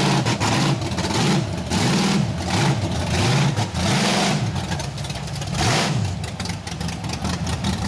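Big lifted Chevrolet mud truck's engine revving hard and falling back about once a second as it churns through a deep mud pit, with the noise of tyres throwing mud over it.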